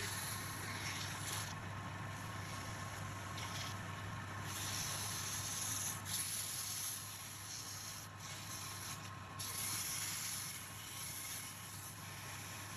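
Sandpaper held by hand against a wooden spindle spinning on a lathe: a rough, steady hiss of abrasive on wood that swells and eases, over the lathe's steady hum.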